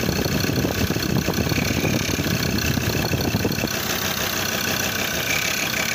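Ford Ranger 3.2 L five-cylinder diesel engine idling steadily, turning its newly fitted drive belt, and running fine with the new belt.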